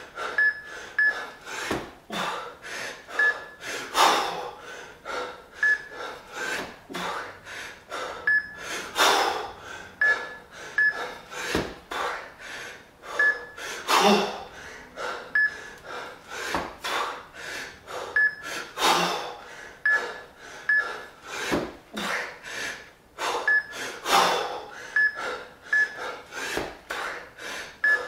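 Hard, fast breathing of a man jerking a pair of 20 kg kettlebells, with a loud gasping exhale about every five seconds at each rep and quicker breaths between, strained in the last minute of a 10-minute set. Short high electronic beeps come in twos and threes from a Fixometer signalling the overhead lockouts, and there are a few dull thuds.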